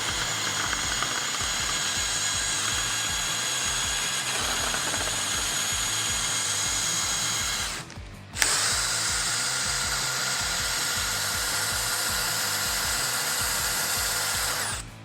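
DeWalt DCD1007 18V brushless hammer drill boring with a spade bit in first gear, a steady whine. It runs for about eight seconds, stops briefly, then starts again and runs steadily until it cuts off near the end.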